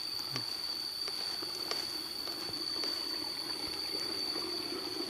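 Water trickling in a rice-paddy irrigation ditch, under a steady high-pitched insect drone, with a few faint ticks.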